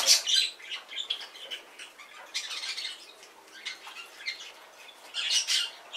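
Small pet parrots squawking and chirping in short, high calls, loudest at the start, again about two and a half seconds in, and near the end.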